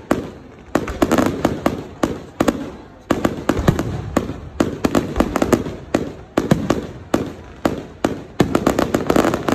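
Fireworks display going off: a rapid string of sharp bangs from bursting aerial shells, two or three a second, with a brief lull just after the start.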